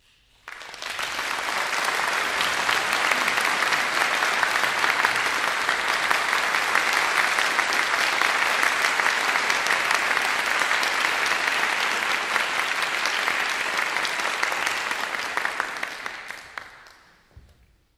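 Audience applauding. The clapping starts suddenly about half a second in, holds steady, and dies away near the end.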